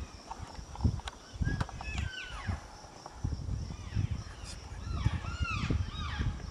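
Elk cows and calves calling: short high-pitched mews that arch up and fall back in pitch, several overlapping, in a cluster about two seconds in and again near the end, over a low rumble.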